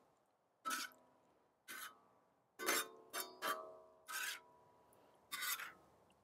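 Metal spatula scraping and clinking against a wok as vegetables are stirred, in about seven short strokes; a few strokes near the middle ring with a metallic tone.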